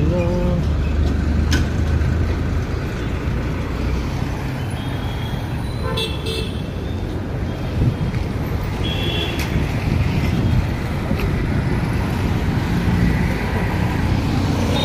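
Road traffic: the engines and tyres of passing cars, trucks and motorbikes running steadily, with short vehicle horn toots about six seconds in and again about nine seconds in.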